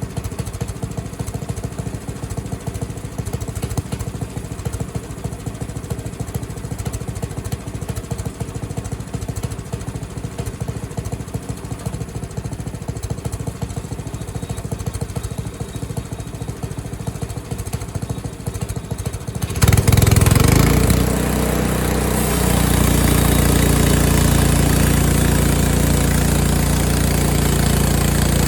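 Small gas engine of a Frontier OS23 portable bandsaw mill running at a rough idle, then throttled up suddenly about twenty seconds in and running steadily at high speed, much louder.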